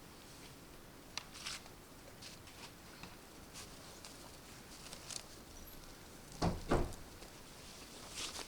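Scattered light clicks and rustles, then two heavy thuds in quick succession about six and a half seconds in.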